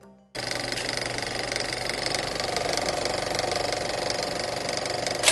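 Steady, fast mechanical rattle of a running machine that starts suddenly about a third of a second in, with a sharp loud hit near the end.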